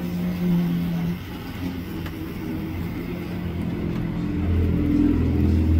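Model diesel locomotive and freight train running along the layout track, a steady low mechanical hum that grows louder in the last second or so.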